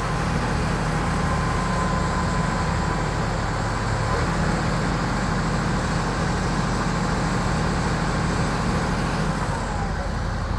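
Caterpillar hydraulic excavator's diesel engine running steadily as the boom and stick move.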